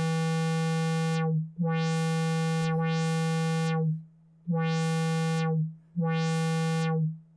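Moog Mother-32 analog synthesizer playing the same low note about five times, each held for roughly a second. The envelope is set to negative polarity and drives the filter cutoff, so each note's brightness dips from an open cutoff and comes back up.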